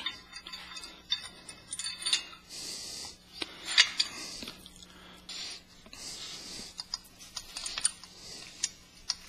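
Small steel hardware clinking and scraping as a long hex-head bolt and its spacers are worked through the holes of steel snow-blade brackets: scattered light metallic clicks with handling rustle between them.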